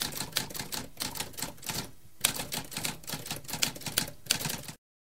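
Typewriter keys clacking in quick, irregular strokes, with a short pause about two seconds in and a sharper strike just after it. The typing stops abruptly near the end.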